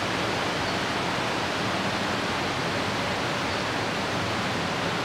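Torrential rain falling, a steady loud hiss with no breaks.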